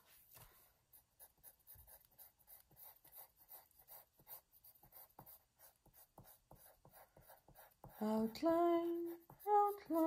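Pink coloured pencil scratching on drawing paper in quick, faint back-and-forth shading strokes. About eight seconds in, a woman starts humming a tune in held notes.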